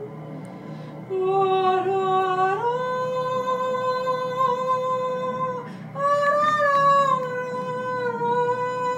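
A woman singing long held notes in a slow melody, stepping up in pitch about a second in and again near three seconds, with a short break before a higher note near six seconds.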